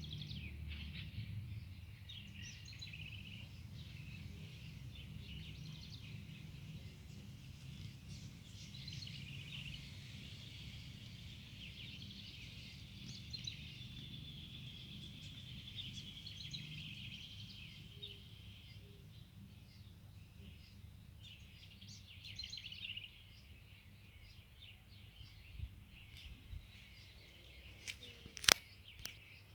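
Small birds chirping and twittering in a garden over a low steady rumble, with one longer trilling phrase in the middle. A single sharp click near the end is the loudest sound.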